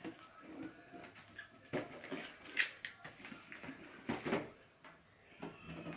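Hard plastic storage containers being handled and set down: scattered knocks and clatters of plastic with light rustling, loudest about two and a half and four seconds in.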